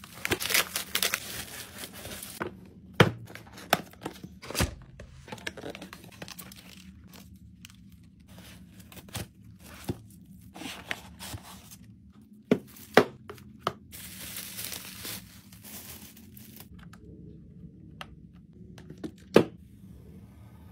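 Packaging opened by hand: a plastic mailer torn open, then plastic wrapping crinkling and rustling. Several sharp knocks and taps come as the cardboard box and the clock inside are handled.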